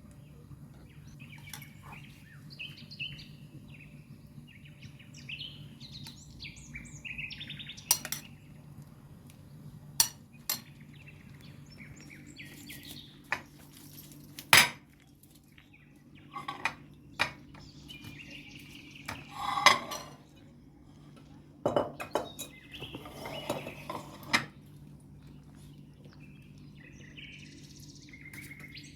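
Kitchen utensils and dishes being handled during food preparation: about ten sharp clinks and knocks spread irregularly, with softer scraping and rubbing in between.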